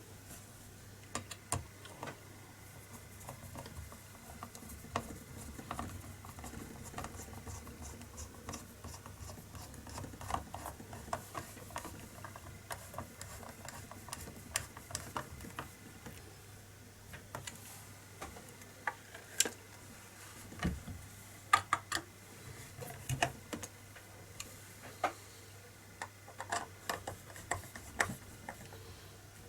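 Scattered small clicks, taps and light scrapes of metal parts and a screwdriver as the screws holding a spring air rifle's action in its wooden stock are fitted and turned, with a few sharper taps in the second half.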